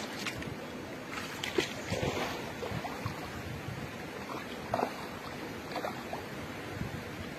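River water running steadily, with sloshing and a few sharper splashes as a person wades in through the shallows.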